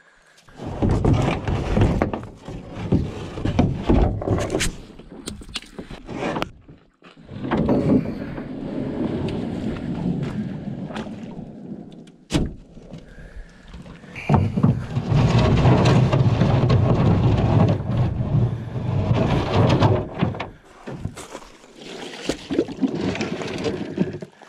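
Small metal boat's hull being dragged over a gravel shore by its bow rope: grinding scrapes in four long pulls of a few seconds each, with sharp knocks between them.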